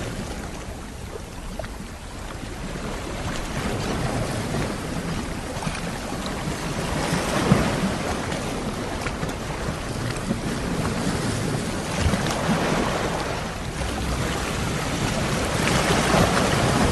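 Sea waves washing onto a shore, the surf swelling and easing off every few seconds.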